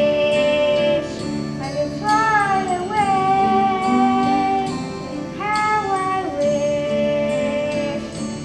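A child singing long held notes, sliding into each one, over an instrumental backing track.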